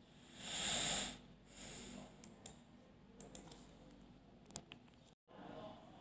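A breath taken close to the microphone, the loudest sound, followed a second later by a softer breath and a few faint clicks. The sound drops out completely for a moment about five seconds in.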